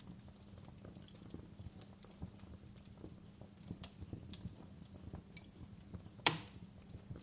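Fireplace fire crackling: scattered small snaps and pops over a low steady background, with one sharp, louder pop about six seconds in.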